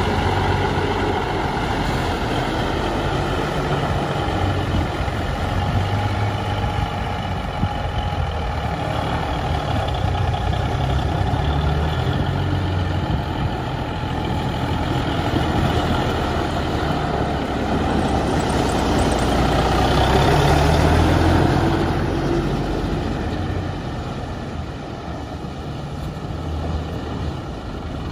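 Versatile 875 four-wheel-drive tractor's Cummins six-cylinder diesel running steadily as the tractor drives around. The engine grows louder about two-thirds of the way through, then fades as the tractor moves away.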